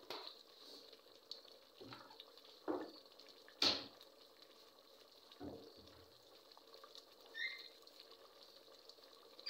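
Goat-meat and tomato curry simmering in an open aluminium pressure cooker: faint bubbling with a few sudden pops, the loudest about three and a half seconds in.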